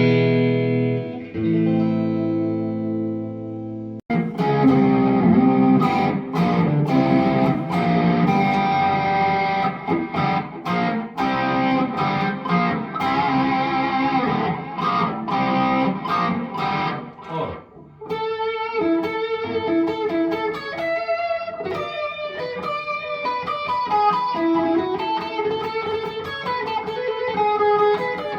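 Background music led by guitar, changing in arrangement about four seconds in and again about eighteen seconds in.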